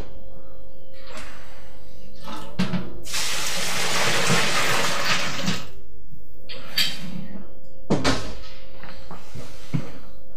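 Hot strike water poured from a stainless steel pot into a picnic-cooler mash tun onto crushed wheat malt, doughing in the first mash rest: a rushing pour lasting about three seconds. Knocks and clanks of the pot being handled come before and after the pour.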